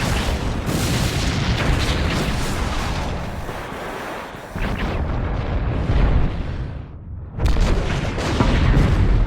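Sci-fi sound effect of a Venator-class Star Destroyer being destroyed: continuous heavy explosions and deep rumbling. The sound thins out briefly about seven seconds in, then a fresh loud blast hits.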